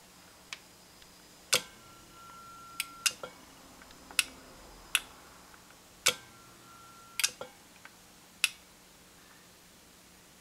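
About a dozen sharp clicks and taps at irregular intervals as the opened electronic scale's metal chassis and circuit boards are handled. A few are followed by a brief, faint ringing tone.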